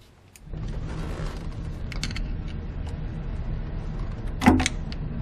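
A hand tool clicking and clinking on metal as it works at the 8 mm bolts of a Ford 5.4L 3-valve engine's oil pump, over a steady low hum. A few light clicks come about two seconds in, and one sharp metallic clink, the loudest sound, comes near the end.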